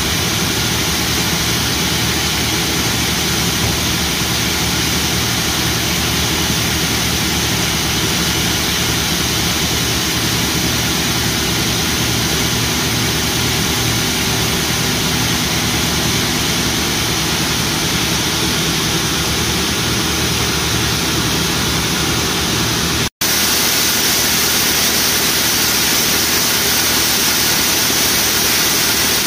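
John Deere T670i combine harvester running steadily: a continuous diesel engine hum under loud mechanical hiss. About 23 s in the sound cuts out for an instant and resumes hissier, with less low hum.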